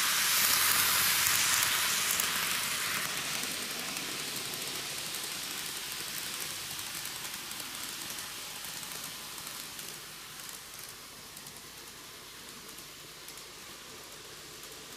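Running noise of a six-car N gauge model diesel railcar set (Micro Ace Meitetsu KiHa 8000 series) on curved TOMIX track: its wheels and motor make a high, even noise. The noise is loud as the train passes close by, then fades steadily over the first ten seconds as the train runs off around the far curve.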